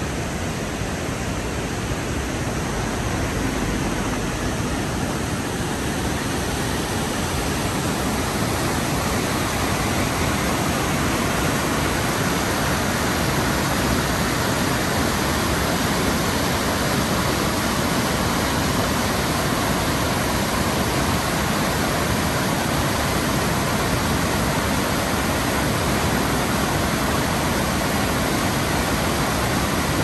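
Creek waterfall with water rushing steadily over rocks and rapids, a dense, even noise with no breaks.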